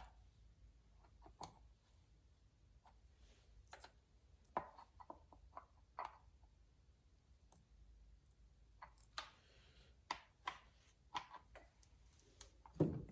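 Faint, scattered clicks and light taps of hand tools and parts on an Echo 2511T chainsaw as its bar and chain are tightened up.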